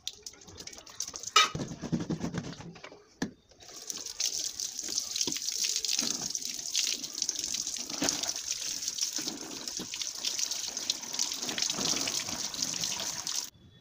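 Running water splashing through a plastic air-purifier grille and onto a concrete floor as the grille is rinsed. The flow is steady from about four seconds in and stops abruptly near the end. Before that there is a sharp knock about a second and a half in.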